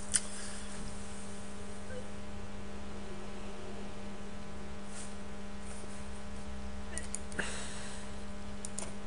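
Steady low electrical hum with background hiss, broken by a sharp click just after the start and a few faint clicks later on.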